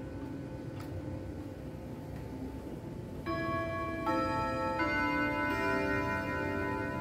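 Junghans W64 wall clock's eight-rod chime playing its quarter-hour melody. After about three seconds of faint ticking, notes start striking roughly every three-quarters of a second, each rod ringing on under the next. The quarter chime was set off by moving the minute hand round to the three-quarter hour.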